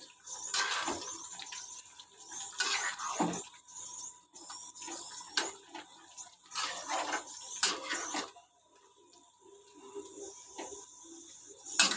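Metal spatula stirring and scraping chicken curry around a steel kadhai, with a steady high sizzle underneath. The scraping strokes come every second or two and ease off after about eight seconds.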